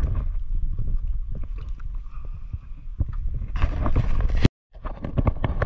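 Wind rumbling on the microphone, with water splashing and scattered knocks. A louder splashing swell about three and a half seconds in breaks off abruptly into a short dead gap.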